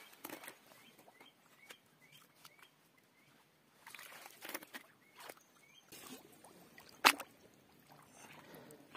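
Hands splashing and sloshing in shallow pond water while picking river snails off the muddy bottom, with small clicks of snail shells. A single sharp clack about seven seconds in is the loudest sound.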